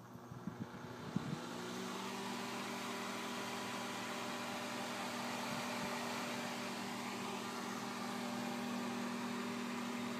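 Small 120-volt AC fan switched on with a few clicks, spinning up with a rising pitch over about the first second and a half, then running with a steady hum and air noise.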